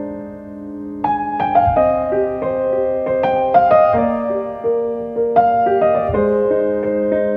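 Background music on piano, with held notes and a run of new notes starting about a second in.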